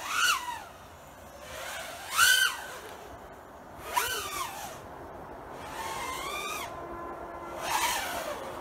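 FPV quadcopter's brushless motors whining in throttle bursts, the pitch rising and falling five times as the throttle is punched and released.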